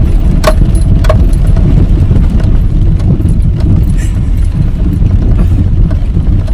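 Car driving, a steady low road rumble, with two sharp clicks about half a second and a second in.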